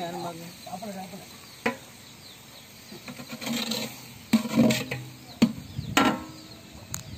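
A long-handled metal ladle stirring thick chicken masala in a large metal cooking pot, scraping through the mixture and knocking sharply against the pot about five times.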